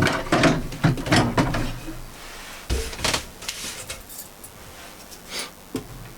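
Knocks and clatter of wooden pieces being handled, dense for about two seconds, then a heavier thump and a few scattered light clicks.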